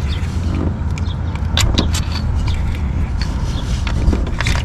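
Scattered metallic clicks and clinks of hand tools and parts being handled in a car's engine bay, over a steady low rumble.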